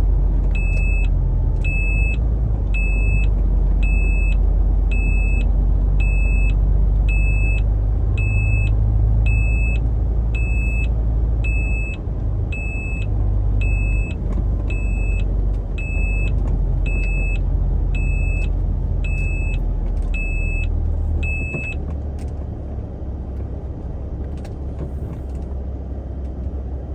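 Semi truck's reversing alarm beeping steadily, about one and a half beeps a second, over the diesel engine running under load as the truck backs up; the beeping stops about 22 seconds in and the engine settles lower.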